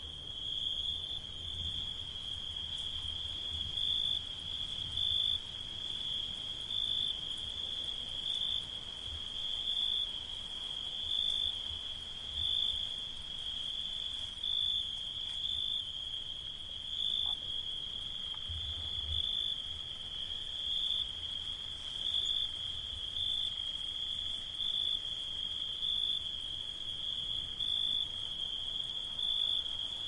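Chorus of cicadas buzzing in a steady, high-pitched drone that swells and eases about every second and a half.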